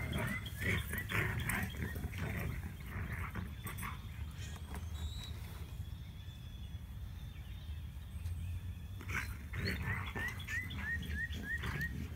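Two Airedale terriers play-fighting, growling and snarling in rough bursts, mostly in the first few seconds and again around nine seconds in, with a quieter stretch between.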